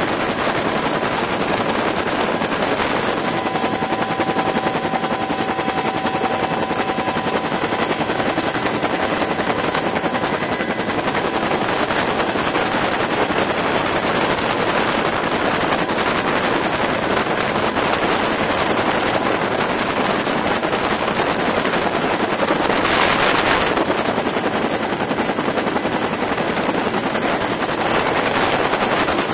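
Bell UH-1 "Huey" helicopter in flight, heard from aboard: steady, loud turbine and rotor noise with a rapid chop, briefly swelling louder about two-thirds of the way through.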